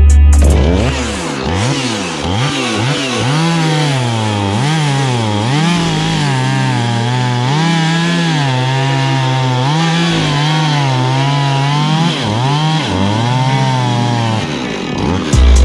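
Husqvarna chainsaw cutting through a spruce log, its engine revving up and dropping back again and again as the chain bites into the wood.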